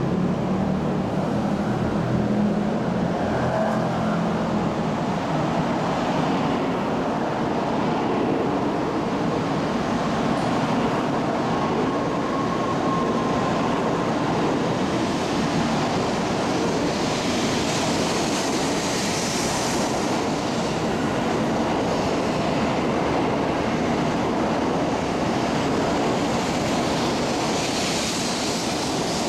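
N700-series Shinkansen train pulling out of the platform and gathering speed, its cars passing with a steady rushing noise. The hiss grows louder for a few seconds around the middle and again near the end.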